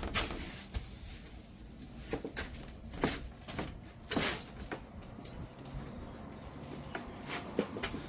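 Scattered light clicks, knocks and a brief scrape of washer parts being handled during a repair, with a few sharper knocks about two, three and four seconds in.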